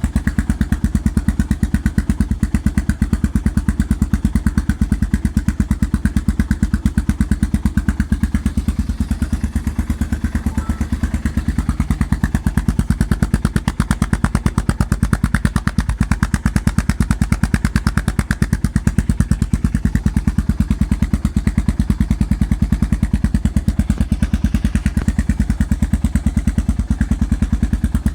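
Yamaha XT motorcycle engine idling with no throttle through an aftermarket GPR exhaust with its dB killer baffle removed: a loud, steady, even train of low exhaust thumps.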